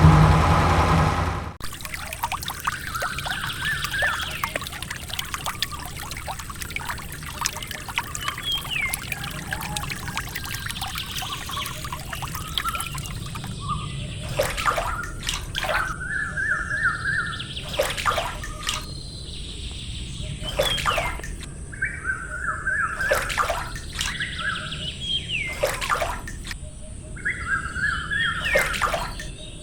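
Water trickling, with birds chirping and singing in short repeated phrases that get louder in the second half. Background music cuts off about a second and a half in.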